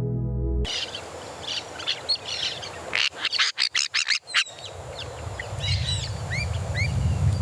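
Wild birds calling and chirping in a forest soundscape, with a quick run of about six loud, sharp notes around the middle and two short rising whistles after it. A low rushing noise builds toward the end.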